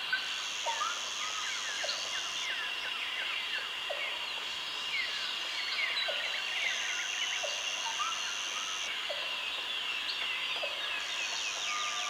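Jungle ambience: many birds chirping in short falling calls over a steady high drone. A higher buzz joins three times, for about two seconds each.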